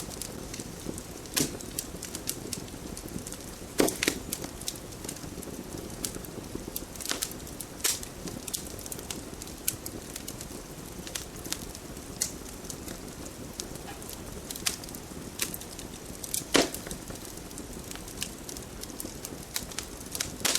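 Wood fire burning in a fireplace, a steady low rush of flame with frequent sharp crackles and pops. Louder pops come about four seconds in, about eight seconds in and near the end.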